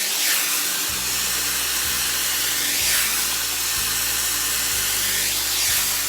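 Dyson Airwrap styler with its round brush attachment blowing hot air while drying bangs: a steady rush of air that swells and eases a few times as the brush is moved.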